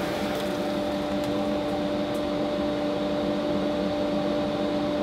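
Workshop dust-extraction vacuum running steadily with a constant motor hum, drawing sawdust through a flexible hose and pipe nozzle swept over an MDF router table.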